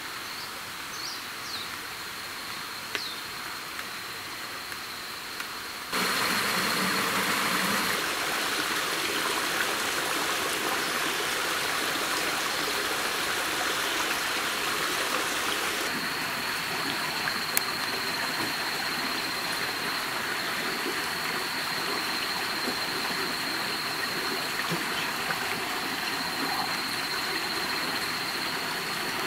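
Rushing stream water, a steady even noise that gets suddenly louder about six seconds in. A thin steady high tone runs above it.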